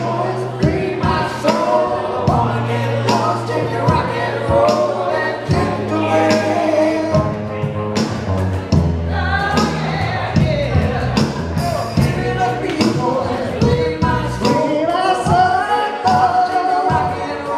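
Live band playing a soft-rock song: a woman singing lead into a microphone over electric guitar, bass guitar and drums.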